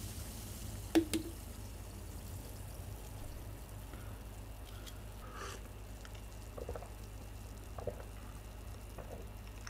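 Cola poured from a can into a glass ends in drips, with a sharp clink about a second in. A brief fizzy hiss follows, then a few soft swallowing sounds as the cola is drunk.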